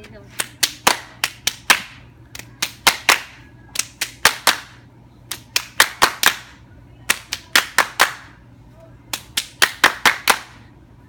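Hand claps in a clapping game: sharp claps and hand-on-hand slaps in quick runs of about four to seven, with short pauses between the runs.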